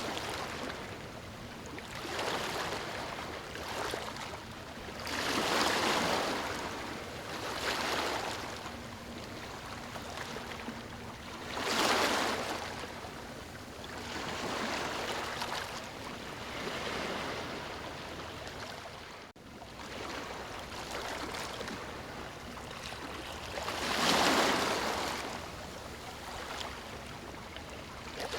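Ocean waves breaking on a sandy shore: a steady wash of surf that swells as each wave crashes, with the largest breakers about 6, 12 and 24 seconds in.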